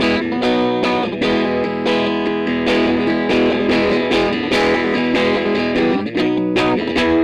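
Fender Custom Shop 1956 Roasted Stratocaster electric guitar with single-coil pickups, strummed chords played through an amplifier. The chords are struck again about twice a second and ring on between strums.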